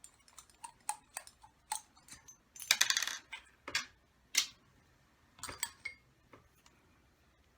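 Small metal engine parts and hand tools clicking and clinking on a work surface as a model nitro engine is taken apart, with a short rattling clatter about three seconds in and a few sharper single clicks after it.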